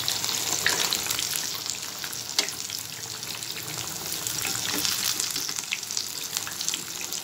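Fish pieces coated in a gram-flour (besan) spice marinade deep-frying in hot oil: a steady sizzle thick with small crackles and pops, with one sharper click about two and a half seconds in.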